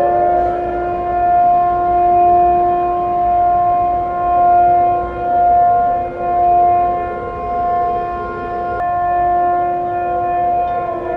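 City-wide civil defense air raid sirens sounding a steady, loud wail, winding up in pitch at the start and beginning to wind down near the end. The volume swells and fades about once a second. This is the annual commemorative sounding, not an attack warning.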